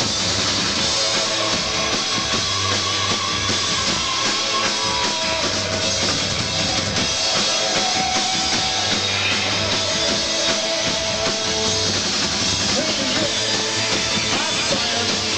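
Live rock band playing, with drum kit and electric guitar, loud and steady throughout.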